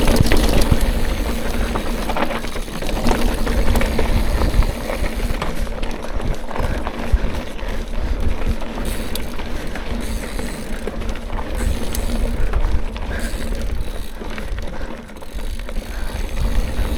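Mountain bike being ridden over a rough trail: tyres rumbling over rocks and roots, with the chain and frame rattling and many small knocks throughout, and a steady low rumble of wind on the microphone.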